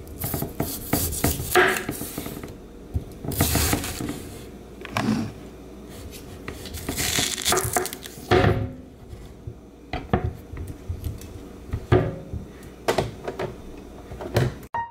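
Kitchen knife peeling yellow yam and potato on a wooden cutting board: irregular scraping strokes of the blade through the skin and knocks against the board.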